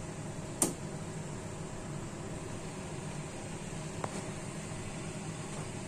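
Steady background hiss and hum, with a sharp click a little over half a second in and a fainter click about four seconds in.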